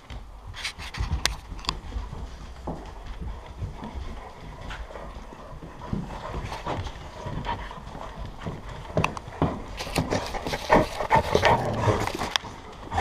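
A crowd of dogs moving around, their claws clicking irregularly on the floor, with some panting. It gets louder and busier about three-quarters of the way through as a dog noses right up to the microphone.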